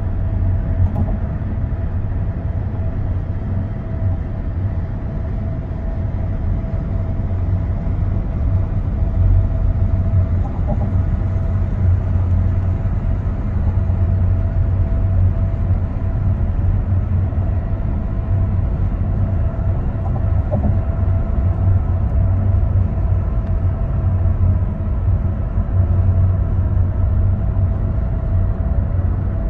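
Steady road and tyre noise inside a Hyundai hydrogen fuel-cell car cruising at highway speed: a deep, even rumble with a faint steady whine above it.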